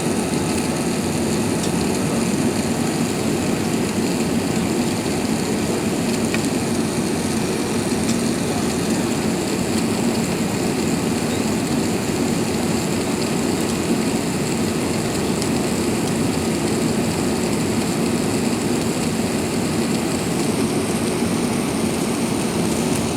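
Steady roar of airliner cabin noise aboard an Airbus A380 in flight: jet engine and airflow noise, constant in level with no change.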